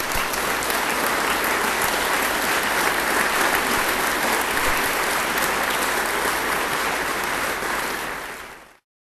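Audience applauding, a dense spread of many clapping hands, fading out shortly before the end.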